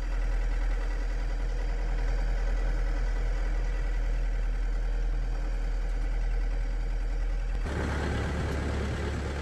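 Backhoe's diesel engine running steadily, its low note shifting about eight seconds in.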